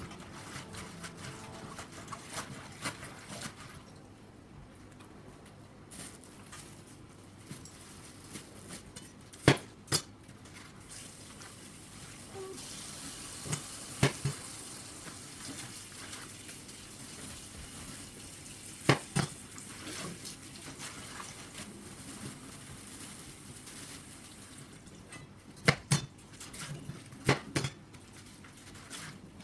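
Dishes and utensils clinking and knocking a handful of times, with water running from a tap for a few seconds in the middle.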